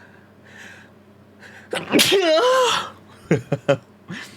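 A man sneezes once, a loud voiced sneeze lasting about a second, after two quick in-breaths. A few short sharp sounds and a breath follow.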